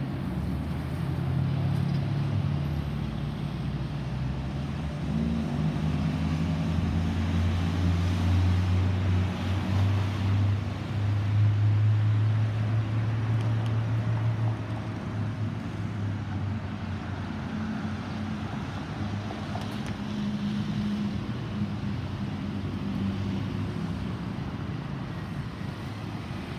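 Departing Airbus A320's CFM56 jet engines passing overhead: a low rumble that swells to its loudest about ten to fourteen seconds in, then slowly fades.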